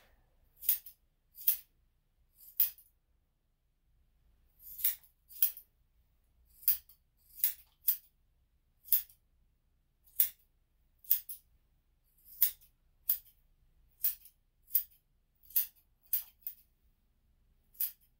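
Grooming scissors snipping through a dog's leg fur: about twenty sharp single snips at uneven intervals, some in quick pairs.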